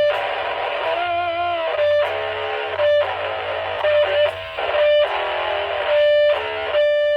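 Distorted electric guitar chords strummed through the DiPinto Galaxie's own built-in high-gain amplifier. A steady feedback tone rings between the chords, because the pickup sits close to the guitar's speaker.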